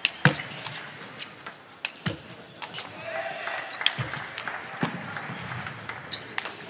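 Table tennis rally: the ball clicks sharply off the rackets and the table, one loud hit every second or two.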